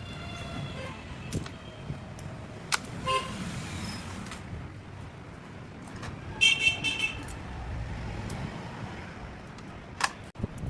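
Street traffic background with a short horn toot about six and a half seconds in, and a few sharp clicks.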